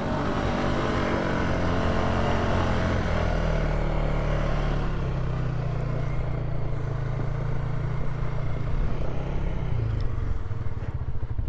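Polaris ATV engine pulling hard up a steep hill climb in low-range four-wheel drive, its pitch rising over the first few seconds and then holding steady under load, shifting slightly near the end.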